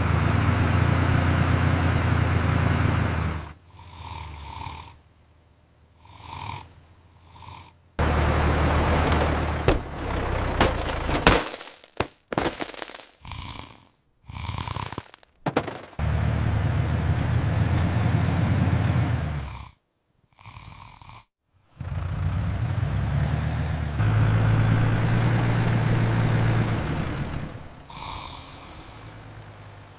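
Tractor engine sound effect rumbling in several long stretches, broken by quieter gaps, with a cluster of sharp crashing and breaking noises about halfway through as the driverless tractor hits things.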